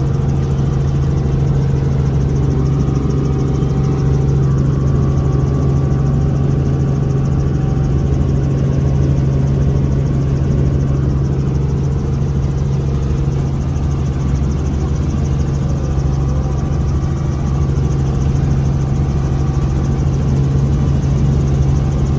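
Small helicopter's engine and rotor running steadily in flight, heard from inside the cabin as a constant loud low drone.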